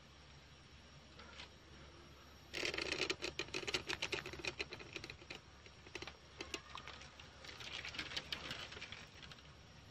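Dry grass tinder bundle rustling and crackling as it is picked up and handled, starting about two and a half seconds in. A second spell of rustling comes near the end as the bundle is blown into to coax the ember to flame.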